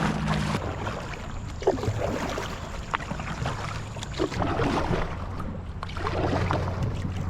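Water splashing and lapping around a canoe on a river, with several short, sharper splashes and a low steady hum underneath.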